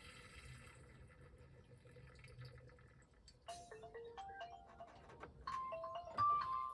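Background music: a soft swell opens it, then a melody of short, plucked or chime-like notes starts about halfway in and grows louder.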